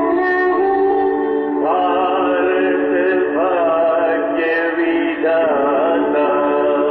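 Recorded school prayer song played back by an automatic school bell system: a sung melody with gliding pitch comes in about a second and a half in over a steady instrumental drone.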